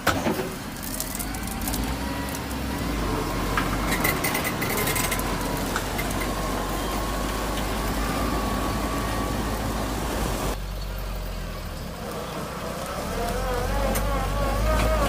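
Heavy diesel dump truck engine running with a deep steady rumble and a thin whine. A sudden loud knock right at the start, and scattered ticks over the first few seconds.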